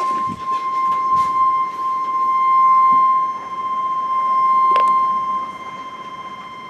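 NOAA Weather Radio 1050 Hz warning alarm tone: one steady, unbroken tone that wavers in loudness, with a brief click about five seconds in. The tone signals that a warning, here a flash flood warning, is about to be read.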